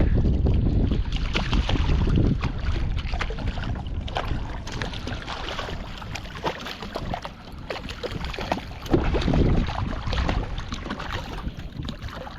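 Wind buffeting the microphone on open water, with irregular clicks and splashes throughout; it is loudest in the first couple of seconds and again about nine seconds in.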